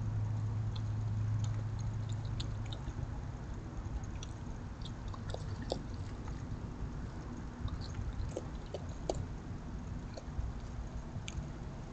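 Raccoon eating from a food dish: scattered small clicks and crunches of chewing and of the dish being nudged, over a steady background hiss with a low hum for the first three seconds or so.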